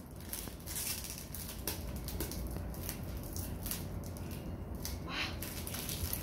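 Clear plastic sleeve of an album box crinkling as it is slid off and crumpled by hand: an irregular run of small crackles and rustles, a little louder about five seconds in.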